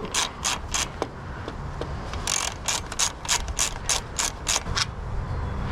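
Ratchet wrench clicking in quick even runs, about four or five clicks a second, as bolts are backed out to take the carburetor off a lawn tractor engine.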